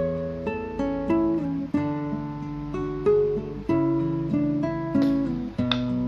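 Background music: an acoustic guitar playing plucked notes and chords that ring out and fade, a new note or chord about every half second.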